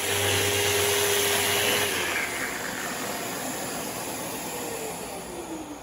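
Festool RO 150 sander running in geared eccentric mode with 40-grit paper, together with the hiss of its dust extractor. About two seconds in the steady hum stops, and near the end a motor winds down with a falling whine as the noise slowly fades.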